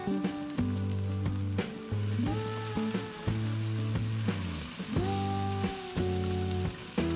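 Vegetables and spice powder sizzling in a hot wok as they are stirred with a wooden spatula. Background music with low held notes that change every second or so plays over it.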